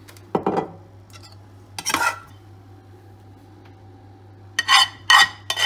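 Metal spoon scraping and clinking against a steel pan while mixing olive oil into leftover masala: a stroke about half a second in, another at two seconds, then three quick ringing clinks near the end.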